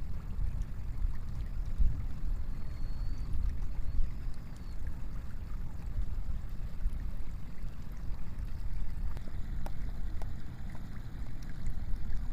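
Steady low rumble of wind and sea at the shore, the loudness rising and falling unevenly. Two faint high chirps are heard early in the first half.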